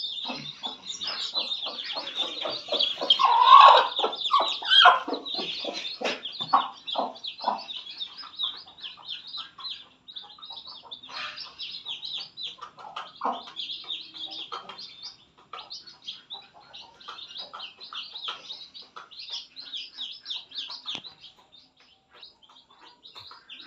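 Many young chicks peeping with high, rapid cheeps, and a mother hen clucking in low repeated notes, loudest a few seconds in and fading out after about eight seconds.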